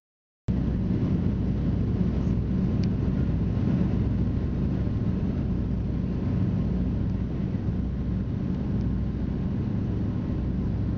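Steady drone of the Lisunov Li-2's two nine-cylinder, air-cooled ASh-62IR radial engines and propellers in flight, heard from inside the cabin. The sound cuts in after about half a second of silence at the very start.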